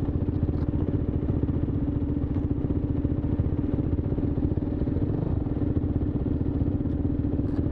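Adventure motorcycle engine idling steadily close to the microphone, a low running note with a fast, even beat.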